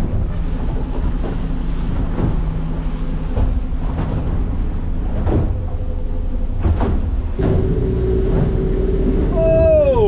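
Boat's engine running steadily under way, with the hull knocking over the chop roughly once a second. A steady higher tone joins about seven seconds in, and a pitched sound sweeps downward near the end.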